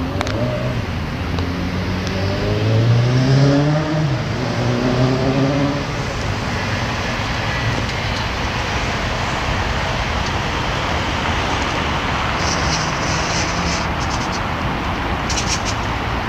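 City street traffic: over the first few seconds a petrol car engine is heard revving up and easing off, then a steady rush of traffic and tyre noise, with a few brief high rattles near the end.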